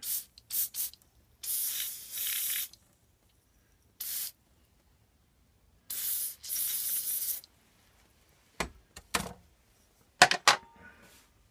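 An aerosol can spraying in three short bursts, the longest about a second and a half, followed by a few sharp metallic clicks and knocks.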